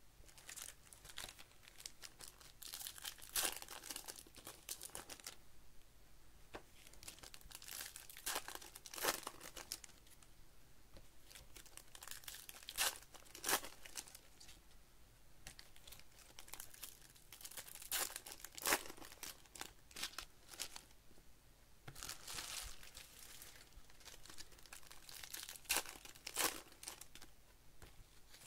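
Foil trading-card packs of 2024 Bowman Baseball being torn open and crumpled by hand, in irregular bursts of crinkling and tearing.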